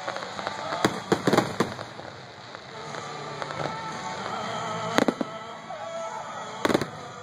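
Fireworks shells exploding: a quick cluster of bangs about a second in, then single loud bangs about five seconds in and near the end, with music playing underneath.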